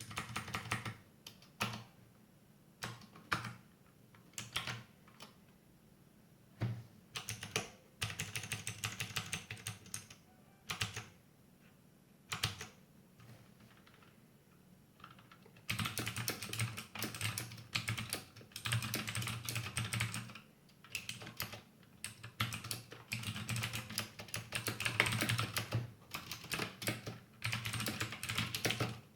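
Typing on a mechanical keyboard with Outemu Blue clicky switches: rapid runs of sharp keystroke clicks in bursts with short pauses, turning into fast, near-continuous typing past the halfway mark.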